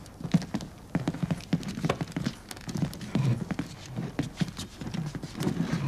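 Irregular knocks, scrapes and shuffling of chairs and feet as several people sit down.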